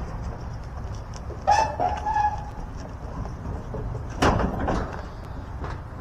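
A rooster crowing once, about a second and a half in. A brief noisy clatter follows about four seconds in.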